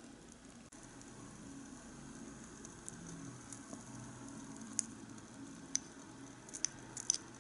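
A miniature pot of onion soup simmering with a soft, steady bubbling, while a tiny metal spoon scrapes mushrooms off a small ceramic plate into it, clinking sharply several times in the second half.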